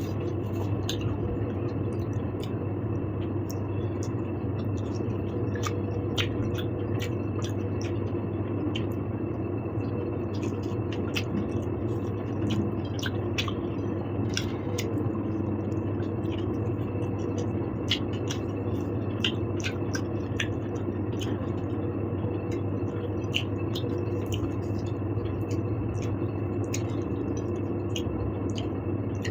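Close-miked eating sounds: a person chewing food, with soft wet squishes and scattered small sharp clicks, over a steady low hum.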